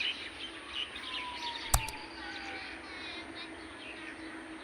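Small birds chirping outdoors, with a faint steady hum underneath. There is a single sharp click a little under two seconds in.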